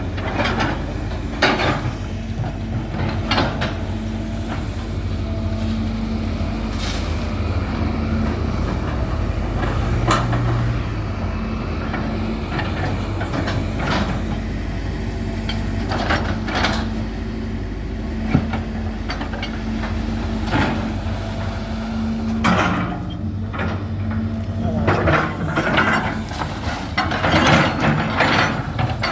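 Hydraulic excavator engine running steadily under load as it digs out water hyacinth, with irregular short knocks and clanks, more of them near the end.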